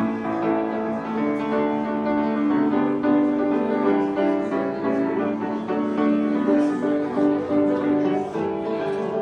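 Background music led by piano, with held notes changing at a steady, unhurried pace.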